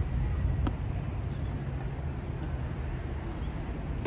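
Faint, distant knocks of a tennis ball struck by a racket, about a second in and again midway, over a steady low outdoor rumble.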